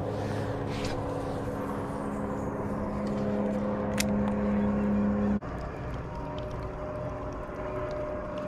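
A steady mechanical hum held at one constant pitch, with a single sharp click about four seconds in; a little past five seconds it breaks off and a different, higher steady hum carries on.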